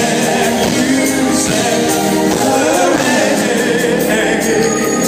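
Male R&B vocal group singing a slow song in harmony over a live band, heard loud through a phone's microphone in a concert hall.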